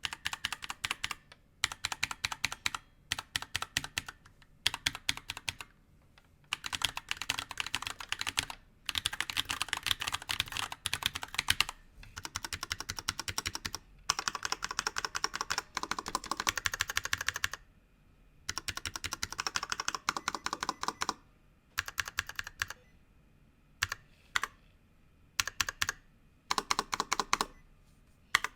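Typing test on a NovelKeys NK65 keyboard with hand-lubed Glorious Panda tactile switches in a polycarbonate case: fast keystroke clicks in bursts of a few seconds, with short pauses between them.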